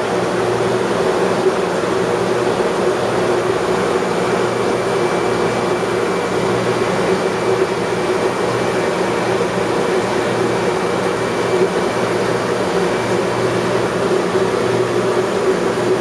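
Steady hum and hiss of running aquarium equipment in a fish room, with low droning tones over an even wash of noise.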